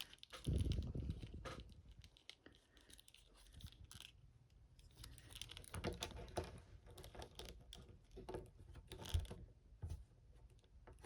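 Faint handling noise of a plastic action figure and its accessories: scattered small clicks and rustles, with a soft low bump about half a second in.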